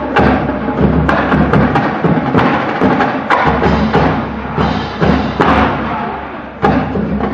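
Marching band playing, brass and percussion together, with frequent sharp drum hits.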